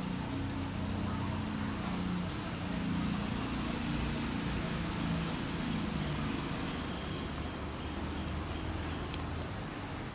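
A steady, engine-like hum with a hiss over it; the hiss eases about two-thirds of the way through.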